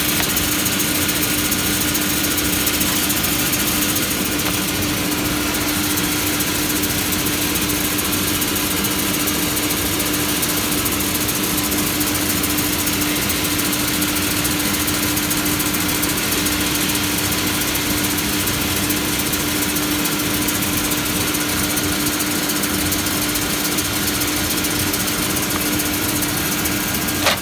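Conveyor-fed wood resaw machine running steadily: a constant motor and saw hum with one steady tone and a hiss over it.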